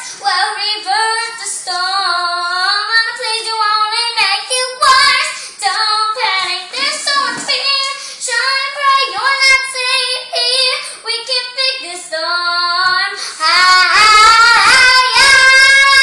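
A young girl singing a dramatic show tune, her voice swooping through long phrases and rising to a loud, held high note near the end.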